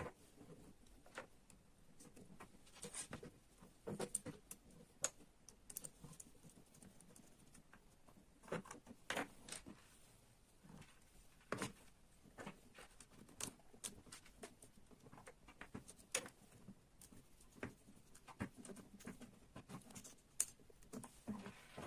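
Small model-kit parts being handled and fitted together, giving faint, irregular light clicks and taps.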